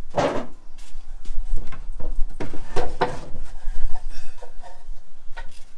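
Homemade wooden casting flasks knocking and scraping against each other and the wooden shelving as they are handled and lifted onto an overhead rack: several separate knocks and scrapes.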